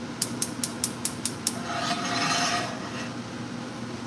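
Gas range's spark igniter clicking rapidly, about seven clicks in a second and a half, then a rush of gas as the burner lights, lasting about a second.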